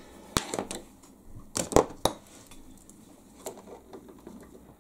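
Small hand tools clicking and clinking against each other and the workbench as they are put down and picked up: a few sharp knocks in the first two seconds, the loudest near the middle of them, then softer handling noises.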